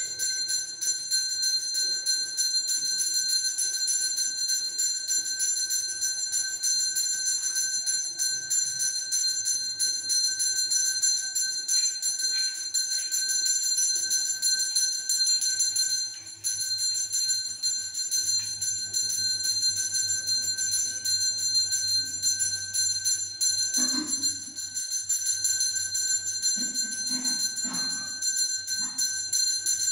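Temple bell ringing continuously with rapid, even strikes, a steady metallic ringing.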